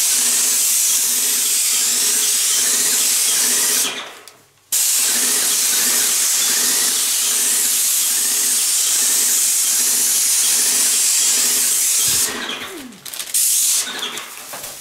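Wagner Control Pro 250M airless paint sprayer spraying through the tip on its extension wand: a loud, steady hiss of paint atomising, with a regular pulse underneath. The spray stops for about half a second after about four seconds and runs again until near the end, where it tails off and gives one short final burst.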